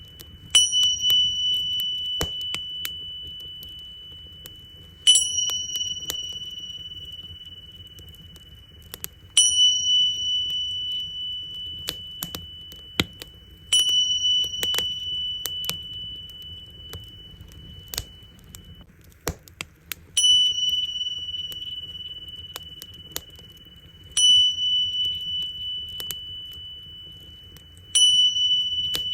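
Tingsha cymbals struck together seven times, about every four seconds, each strike leaving a high, clear ringing tone that slowly fades. Beneath them a wood fire crackles with scattered sharp pops.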